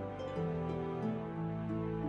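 Soft, slow background music: gentle instrumental notes held and changing every half second or so.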